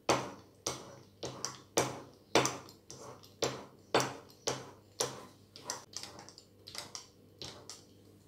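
Pizza-cutter wheel making quick repeated cuts through thin dough on a stone countertop, a sharp click as the wheel strikes the counter on each stroke, about two a second. The clicks grow fainter and a little quicker after about six seconds.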